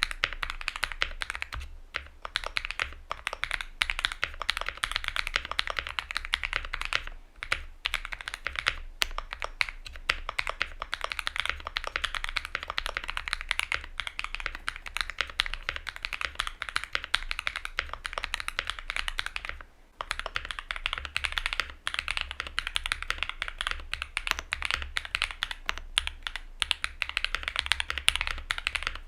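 Typing on a Luminkey65 custom mechanical keyboard with an FR4 plate and lubed, filmed switches: a fast, continuous run of bright, clacky keystrokes, broken by short pauses about seven seconds in and again near twenty seconds.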